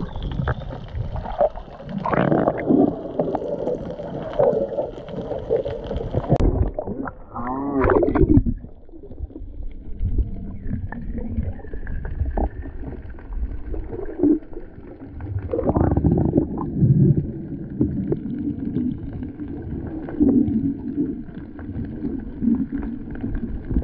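Water sloshing and gurgling against a snorkeler's camera in the water, with a low rumble throughout and the loudest gurgle about eight seconds in.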